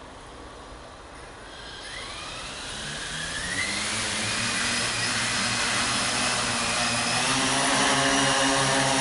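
Electric multirotor crop-spraying drone spinning its rotors up for takeoff. About two seconds in a whine starts, rising in pitch and growing louder over the next few seconds. It then settles into a steady, many-toned rotor buzz as the drone climbs and flies.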